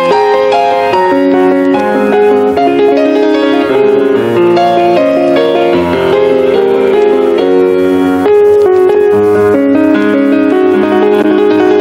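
Background piano music: a melody of held notes over a steady lower accompaniment.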